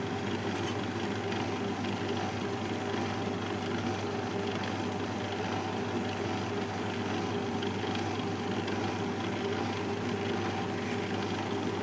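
Twin-gear masticating juicer's electric motor running with a steady, even hum.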